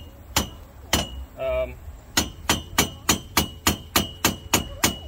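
A mallet striking a spare tire carrier mount on a Polaris RZR's roll cage, knocking it into position to set its height. Two spaced hits, then a steady run of about three strikes a second, each with a short metallic ring.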